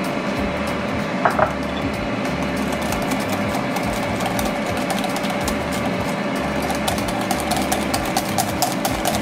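Wire whisk beating waffle batter in a glass mixing bowl, over a steady fan-like hum. Two light clinks come about a second in, and quick, regular taps of the whisk against the glass set in near the end.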